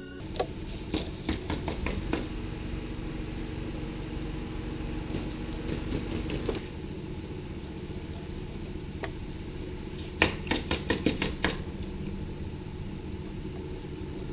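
2000 Ducati Monster's L-twin engine idling steadily, with bursts of sharp clicking about a second in and again about ten seconds in.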